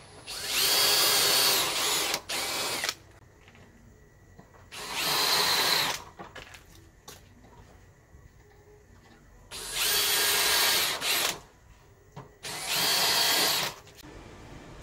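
Cordless drill driving a woodworking countersink bit into a cement siding board, cutting countersunk screw holes. It runs in four bursts of about one to two seconds each, plus a short extra burst after the first, the motor's whine rising as each burst starts.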